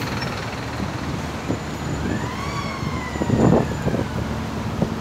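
A siren wails once about halfway through, its pitch rising and then falling slowly, over a steady rushing background noise. A low thump near the middle is the loudest moment.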